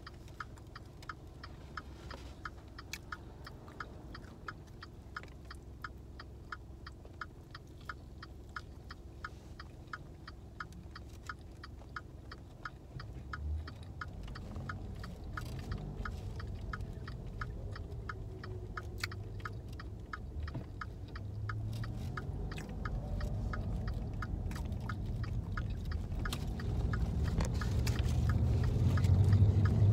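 A car's turn-signal relay ticking steadily, about two or three ticks a second. From about halfway through, a low engine and road rumble builds and grows louder toward the end as the car gets moving.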